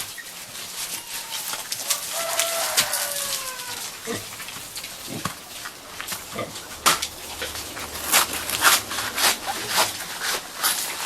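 Pigs eating fresh elephant grass: irregular crunching and snapping of chewed stems, with a short high call about two to three seconds in.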